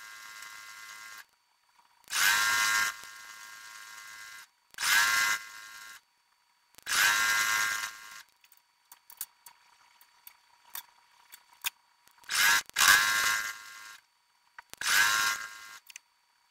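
Sped-up audio of an electric sewing machine stitching in short runs: about five bursts of motor whine, each about a second long and trailing into a quieter hum, with small clicks in a gap midway.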